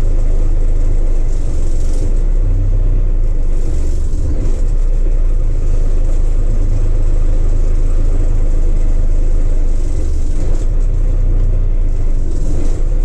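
1983 Mack cabover semi's diesel engine idling steadily, heard from inside the cab.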